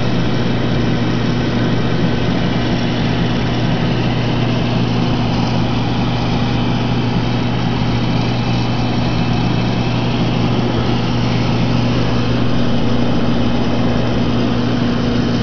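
Aquarium pump running: a steady, loud electrical hum with a low buzz that holds one even pitch throughout.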